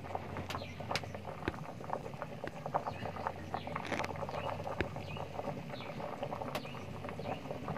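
Pot of beans boiling hard on a wood-fire stove: continuous bubbling with many irregular crackles and pops from the burning firewood.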